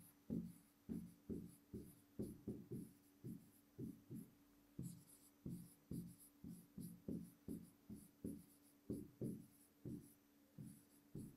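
Pen writing on a whiteboard: a faint run of short strokes and taps, about two to three a second, as words are written out by hand.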